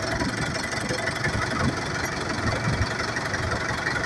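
A fishing launch's inboard engine running steadily as the boat moves, with a low knock and a constant hiss over it.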